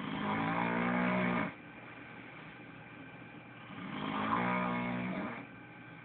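A person snoring: two long, pitched snores about three and a half seconds apart.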